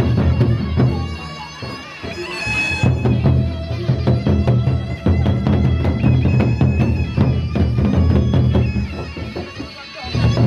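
Gendang beleq ensemble playing in procession: large barrel drums beaten with sticks, with cymbals, under a wind instrument holding a sustained melody.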